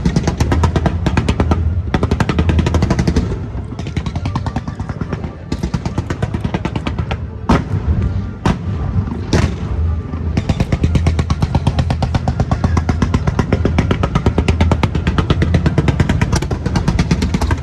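Loud music with a heavy, steady drum beat, with three sharp bangs a little under a second apart about halfway through.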